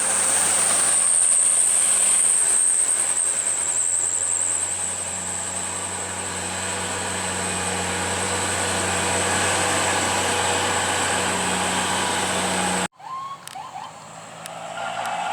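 Heavy vehicle engine running on the climb, with a steady high-pitched whine above it. Near the end the sound cuts off abruptly and gives way to a quieter passage with a slowly rising tone.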